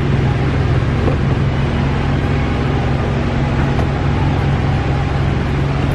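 Steady, loud mechanical hum with a strong low droning tone and a couple of fainter held tones above it, unchanging throughout.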